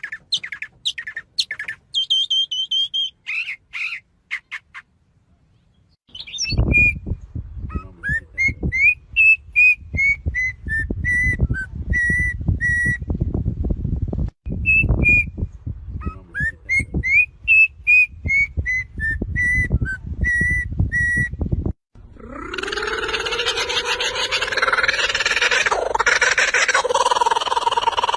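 Birds calling and whistling. First come short whistled notes. Next come two long runs of repeated chirps over a low rumble. About three quarters of the way through, a dense, loud mix of many calls takes over.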